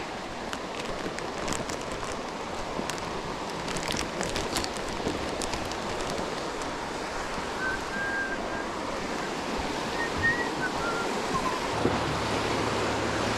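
Steady rushing of water pouring through a dam spillway runoff, an even wash of noise. A few faint short chirps sound about halfway through.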